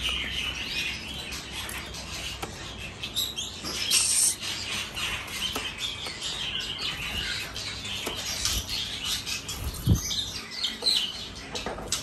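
Many caged songbirds chirping and calling over one another in quick, overlapping notes, with a few sharp clicks and a dull thump about ten seconds in.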